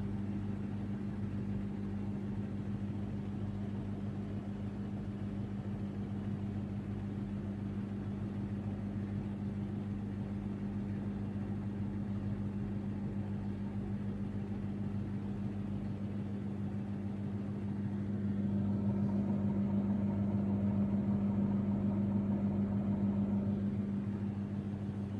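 Samsung Ecobubble front-loading washing machine spinning its drum on the final spin, with the steady hum of its digital inverter motor. It grows louder about three quarters of the way through, then eases near the end.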